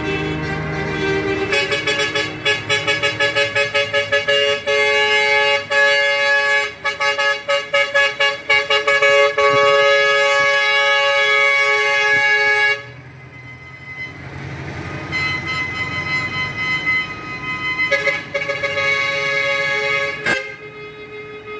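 Truck horns honking as trucks pass. A loud multi-tone horn sounds in quick repeated pulses for the first dozen seconds and cuts off suddenly. Quieter horn toots and vehicle noise follow.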